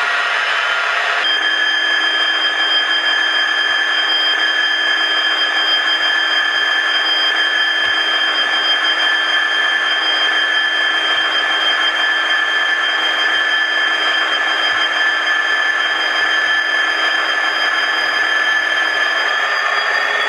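Class 66 diesel locomotive sound played by the N gauge model's DCC sound decoder through its small on-board speaker: a steady engine note with a high whine that sets in about a second in and rises in pitch near the end as the locomotive works up.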